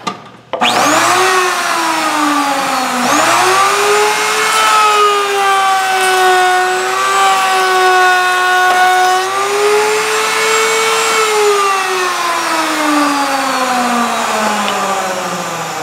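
Table-mounted router starting with a rising whine and running at speed while a wooden bar is fed past its profile bit. About eleven seconds in it is switched off and winds down, its pitch falling steadily.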